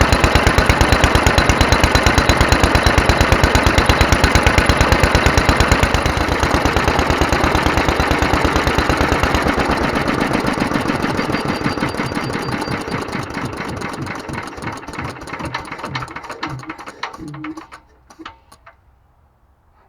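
Petter AS stationary engine running with a steady, rapid beat of firing strokes. About halfway through it slows, the strokes spacing out and fading, and it coasts to a stop near the end.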